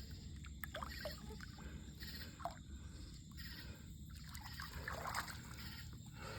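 Faint water sloshing and trickling, with a few small splashes scattered through, as a large blue catfish is held in the water for release.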